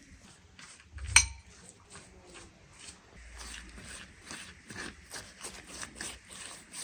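A sharp knock about a second in, then a steady run of quick, light clicks and taps.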